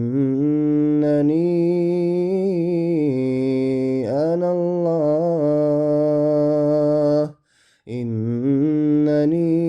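A male reciter chanting the Quran in melodic tajweed style, his voice alone, drawing out long held notes that bend in pitch. He stops for a breath about seven and a half seconds in, then carries on.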